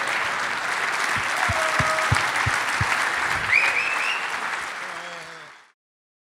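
Large audience applauding, with a few cheers and a few low thumps. The applause fades out and stops about five and a half seconds in.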